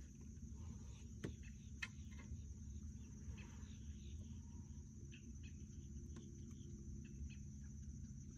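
Steady high-pitched insect trill, with a low rumble underneath and a few light clicks.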